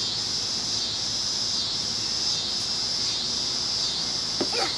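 Steady, high-pitched chorus of insects, swelling and easing slightly every second or so.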